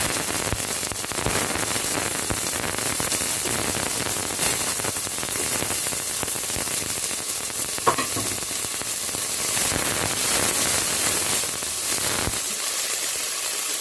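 Chopped onion and ginger sizzling as they fry in hot oil in a pot. A single sharp click comes about eight seconds in.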